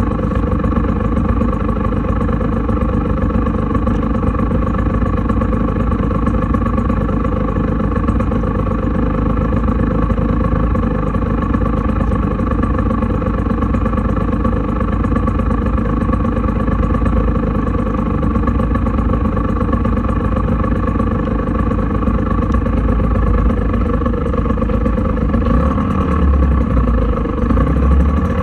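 Scooter engine idling steadily, picked up close by a microphone on the scooter itself. The low rumble grows a little stronger near the end.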